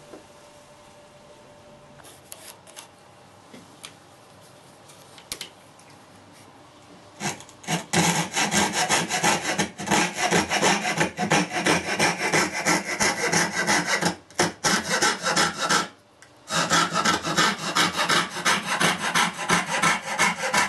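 Hand saw cutting wood in quick, even strokes, starting about seven seconds in after a few light knocks, with two short breaks partway through.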